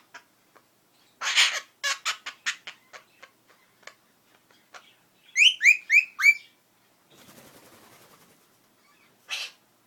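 Princess of Wales parakeet calling: a short noisy burst followed by a run of quick fading clicks, then four quick rising chirps, a faint rasping noise, and another short noisy burst near the end.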